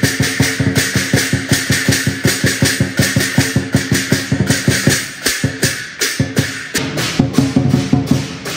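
Lion dance percussion: a large drum beaten in a fast, even rhythm with crashing cymbals. The beat thins out for a moment about five seconds in, then comes back stronger.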